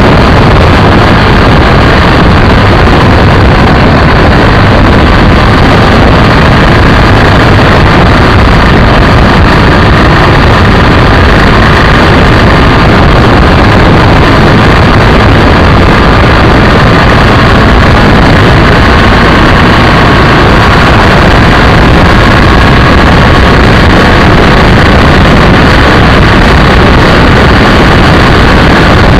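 BMW F800ST motorcycle riding at road speed. The parallel-twin engine and the tyres mix with the rush of wind over the camera's microphone in one loud, steady noise with no gear changes or pauses.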